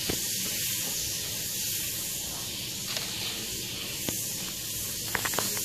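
Melted butter sizzling in a frying pan as the pan is swirled over an electric coil burner: a steady hiss with a few faint pops. A stove fan hums low underneath.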